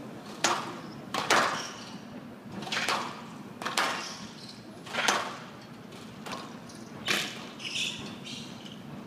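Squash rally: the ball struck by rackets and smacking off the front wall in a string of sharp hits, roughly one a second, some in quick pairs.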